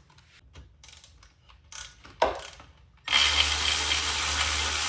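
A few light clicks and knocks of tool handling, then about three seconds in a power ratchet starts running steadily, spinning out an exhaust bolt at the motorcycle's engine.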